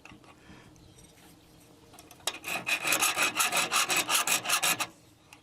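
A hand file rasping back and forth across the edge of a metal latch to take off a burr. A quick run of even strokes starts about two seconds in and stops near the end.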